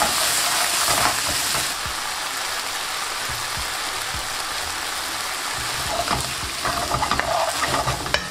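Stock sizzling in a hot non-stick wok of steamed vegetables as they are glazed. It is louder for the first couple of seconds, then settles to a steady sizzle, with a spoon stirring and scraping through the pan near the end.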